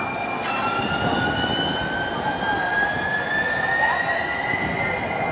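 San Diego Trolley light-rail car pulling away and accelerating. Its electric traction drive gives a whine that rises steadily in pitch, over a steady rolling rumble.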